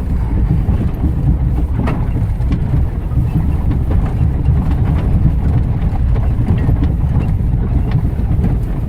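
Off-road vehicle crawling over rough ground in four-wheel-drive low range: a steady, loud low engine and drivetrain rumble, with a few light knocks from the chassis.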